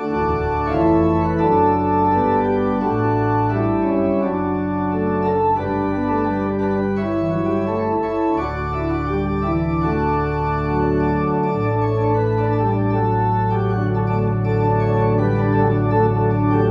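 Organ playing sustained chords over long held bass notes that change every few seconds: the postlude following the service's dismissal.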